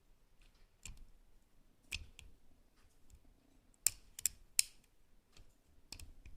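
Lock pick and tension wrench working in a stainless steel discus padlock: scattered sharp metallic clicks and ticks as the pick works the pins under heavy tension, with three louder clicks close together about four seconds in.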